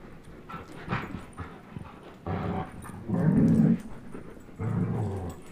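Dogs play-growling over a tug-of-war toy: three low growls, the middle one, about three seconds in, the loudest and longest.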